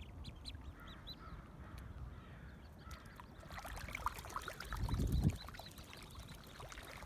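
Common goldeneye ducklings calling with short, repeated peeps as they swim off. A brief low rumble about five seconds in is the loudest moment.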